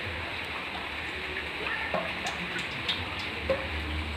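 Cooking oil pouring in a thin, steady stream from a plastic can into a metal kadai, with a few faint ticks.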